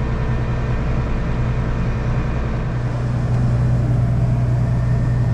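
Farm tractor engine running steadily under load, a low even drone that grows a little stronger about halfway through.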